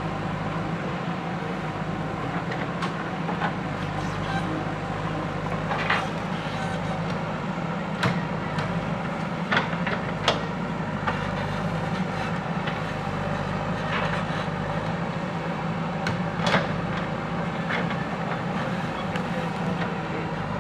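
JCB 3DX backhoe loader's diesel engine running steadily, with a handful of sharp knocks and cracks every few seconds.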